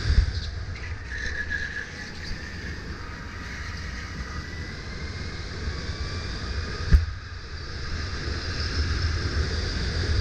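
Sodi RSX2 electric kart driving at speed, heard from an onboard camera: a low wind rumble on the microphone and tyre noise, with a thin motor whine that slowly shifts in pitch. A single sharp knock sounds about seven seconds in, and the sound grows louder again near the end.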